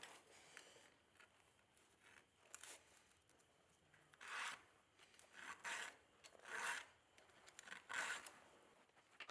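Hand file being drawn across the chain of a Husqvarna 550 XP chainsaw to sharpen it: about six short scraping strokes, roughly a second apart, the first a couple of seconds in.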